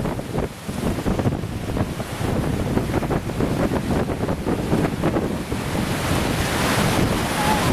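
Strong, gusty cyclone wind buffeting the microphone: a continuous low rumble of wind noise that swells and eases, getting stronger and hissier near the end.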